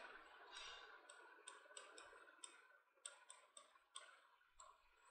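Faint, irregular taps and short scrapes of a writing tip on a board as a word is written out, about two or three a second.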